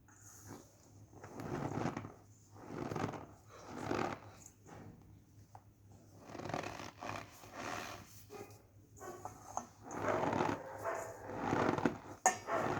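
Cornstarch being squeezed, giving squeaky, crunchy squishes in a run of separate presses about one to two seconds apart, the strongest near the end.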